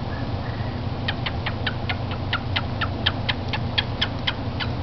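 Cockatiel making kissing noises: a steady run of short, smacking clicks at about four to five a second, starting about a second in.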